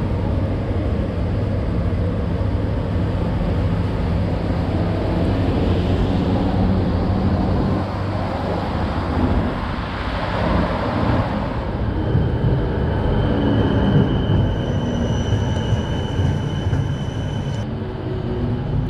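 Tram running on rails: a steady low rumble. A thin, high, steady whine joins past the middle and stops shortly before the end.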